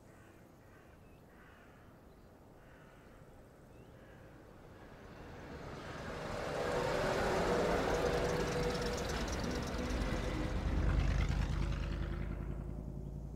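An old bus drives past: its engine and tyres swell from faint to loud over several seconds, with a deep rumble loudest about eleven seconds in, then begin to fade away.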